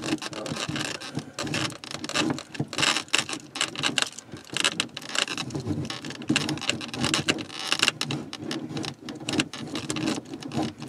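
RV shower drain fitting being unscrewed from its nut, giving rapid, irregular clicking and scraping as the threads turn.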